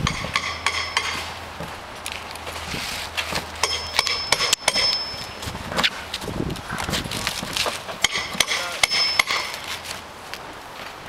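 Roofing hammers striking nails on the roof, in quick runs of sharp blows, some with a brief metallic ring, coming in three bursts: near the start, around four seconds in and around eight to nine seconds in.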